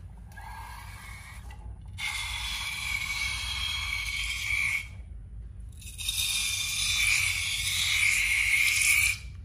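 Slime being squeezed out through the narrow neck of a rubber balloon: two long hissing, squealing pushes, the first starting about 2 seconds in and the second about 6 seconds in, each cutting off suddenly.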